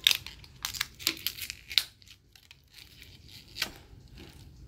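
Paper sticker wrapper being torn and peeled off a plastic toy ball: a quick run of short rips in the first two seconds, then one more rip about three and a half seconds in.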